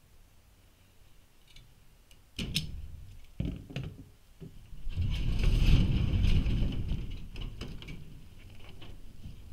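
Overhead garage door being opened: a few sharp clacks, then a loud rolling rumble of the door running up its tracks about halfway through, fading as it comes fully open.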